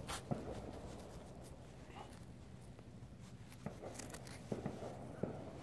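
Fingers brushing and scratching through loose, damp soil, with faint crumbling and a few soft irregular clicks.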